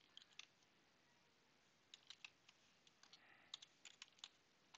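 Faint keystrokes on a computer keyboard, typed in short bursts with pauses between them.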